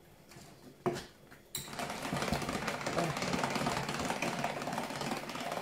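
A Tupperware Speedy Chef 2 hand-cranked mixer turned quickly, its gears and whisks whirring and rattling evenly as it whips cream with mascarpone to firm it up. It starts about a second and a half in, just after a light knock.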